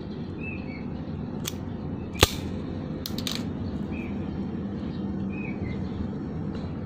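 Automatic wire stripper clamping and stripping the insulation off a charger-cable wire, giving one sharp snap about two seconds in and a few lighter clicks. A small bird chirps briefly again and again over a steady low background noise.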